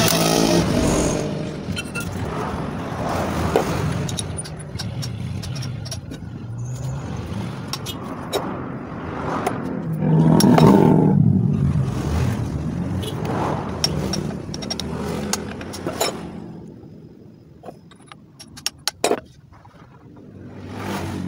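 Brushless cordless impact wrench running briefly on a bearing-cap bolt of a truck differential carrier, tightening it during reassembly, then scattered metallic clinks and knocks of parts being handled, with a louder rumble about ten seconds in.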